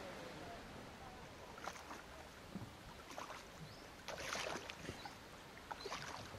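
Coracle paddle strokes in the water: a steady light hiss, then short splashes and drips about once a second, with one longer splash about four seconds in.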